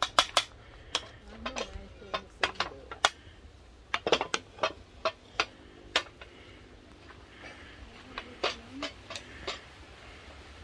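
Metal spoon clinking, tapping and scraping against a metal cooking pot and a ceramic bowl as cooked white rice is dished out: a string of sharp, irregular clinks and knocks, thickest near the start and around the middle.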